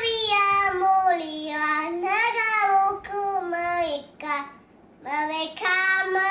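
A young boy singing unaccompanied, holding long notes that slide up and down in pitch, with a short pause about four and a half seconds in.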